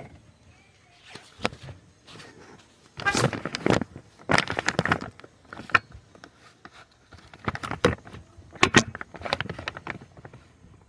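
Intermittent clusters of clicking and clinking from metal hand tools and parts being handled during engine work, several short bursts with quiet gaps between.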